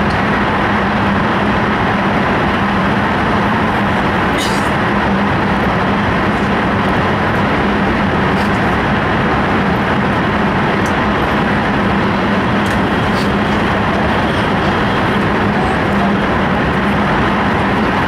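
Running noise inside an E5 series Shinkansen car travelling at speed: a loud, even rush with a steady low hum under it and a few faint ticks.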